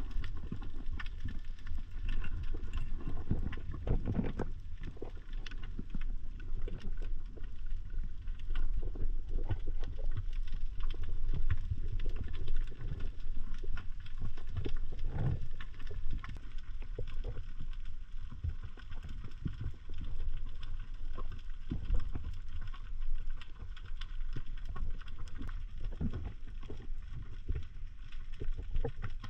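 Underwater sound from a camera held below the surface: a muffled, low rumble of water moving against the housing, with many scattered faint clicks and crackles.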